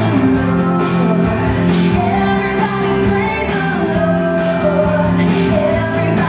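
Upbeat song with a singing voice over a steady beat, playing loudly.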